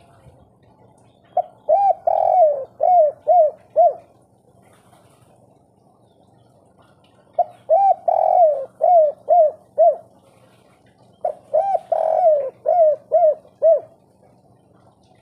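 Spotted dove (tekukur) cooing its 'kuk 3' song three times, a few seconds apart. Each phrase has two quick opening coos, one longer drawn-out coo that falls away, then three short closing coos.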